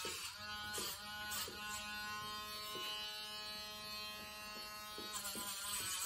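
Dremel-type rotary nail grinder running on a dog's claws with a steady motor whine, stopping about five seconds in.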